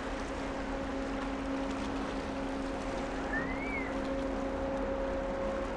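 Steady drone of passing ships' engines, a hum holding a couple of steady tones over an even hiss, from the container ship and the tug beside it. A short whistle rises and falls about halfway through.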